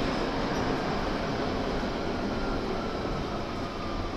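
London Underground 1992 Tube Stock train running through the tunnel, heard from inside the car as a steady rumble and hiss of wheels and running gear. A faint whine from the chopper-controlled traction equipment falls slowly in pitch.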